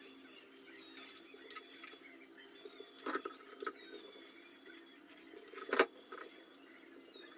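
Small scratchy clicks and handling noises over a steady low hum, with a louder knock about three seconds in and another near six seconds.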